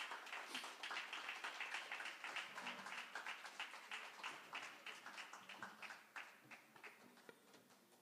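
Small audience applauding, a dense patter of hand claps that thins out and fades away over about seven seconds.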